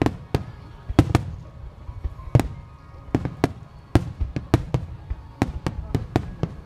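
Star mine fireworks barrage: aerial shells bursting in rapid, irregular succession, more than a dozen sharp bangs over a low rumble.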